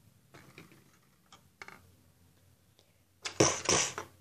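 Light plastic clicks and taps of a LEGO minifigure being handled and set down on a tabletop, a few faint ones in the first two seconds, then a louder rubbing scrape about three and a half seconds in.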